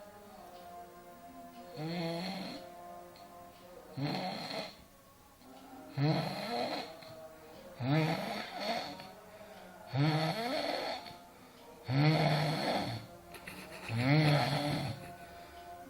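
A person snoring loudly: seven snores in a regular rhythm, about one every two seconds, starting about two seconds in. Each snore has a pitched, rattling drone.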